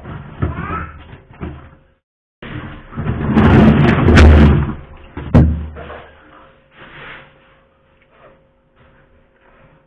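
Hammer knocking thick built-up ice off the inside walls of a defrosting freezer, with heavy thuds and clatter and two sharp, loud strikes in the middle, then a few lighter knocks.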